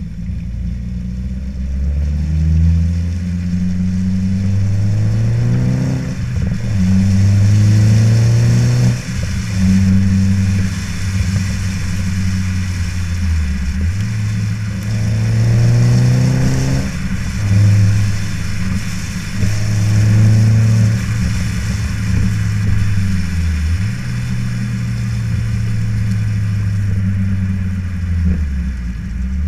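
Exhaust note of a Mini Cooper R56 four-cylinder engine through a Cobra Sport resonated stainless-steel cat-back exhaust, heard at the twin tailpipes while driving. The note climbs with the revs and drops back sharply several times.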